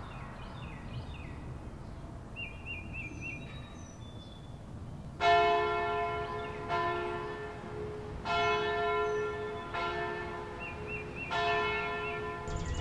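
A church bell tolling, struck five times about a second and a half apart, each stroke ringing on and fading. Small birds chirp and trill throughout, heard most clearly before the first stroke.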